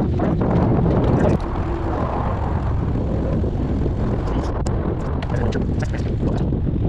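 Steady wind buffeting on the microphone of a moving bicycle, mixed with tyre rumble on pavement; it eases slightly about a second and a half in.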